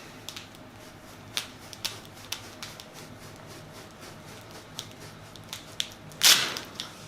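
Scattered faint clicks and rustling from handling on a chiropractic treatment table, then one short, loud rush of noise about six seconds in.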